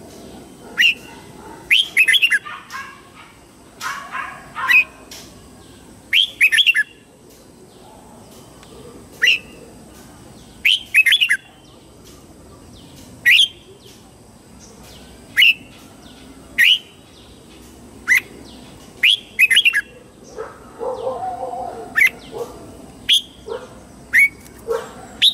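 Red-whiskered bulbul singing its morning song: short clear whistled phrases, some single notes and some quick runs of three or four notes, repeated every second or two.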